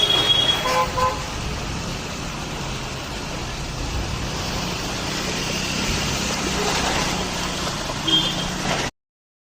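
Road traffic with a steady noise, and a vehicle horn tooting briefly at the start and again near the end. The sound cuts off suddenly just before the end.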